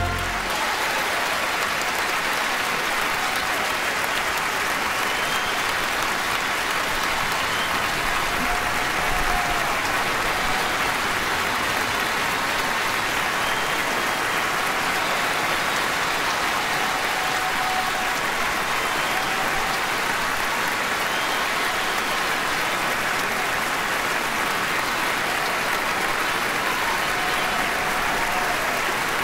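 Large theatre audience applauding steadily, a dense, even sound of many hands clapping that holds at the same level throughout.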